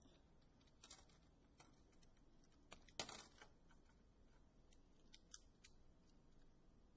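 Near silence: room tone with a few faint, short clicks and rustles, the loudest about three seconds in.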